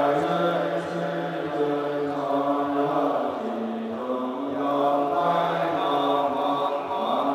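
Buddhist monks chanting together in unison during a morning service, holding long notes that step slowly up and down in pitch.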